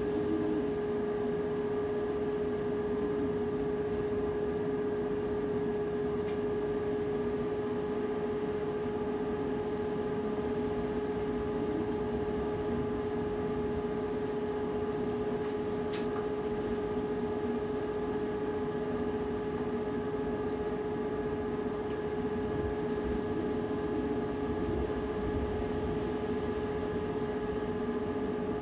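Strong wind rumbling unevenly against the microphone, under a steady droning tone.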